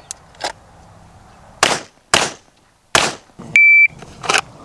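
Gunshots on a shooting range: a faint shot, then three louder single shots spread over about a second and a half. Then an electronic shot timer gives its short high start beep, and another shot follows right after it.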